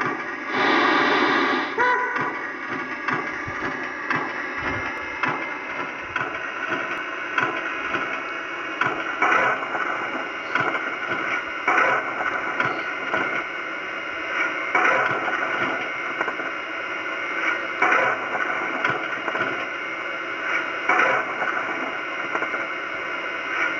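Steam-locomotive sound effects from an old Sierra sound system in a battery-powered Accucraft K27 model, played through its small speaker: a burst of hiss about a second in, then a steady background with a louder puff every one to three seconds.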